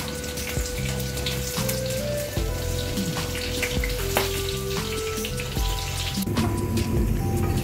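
Background instrumental music with held notes that step between pitches, over the crackling sizzle of food frying in a pan.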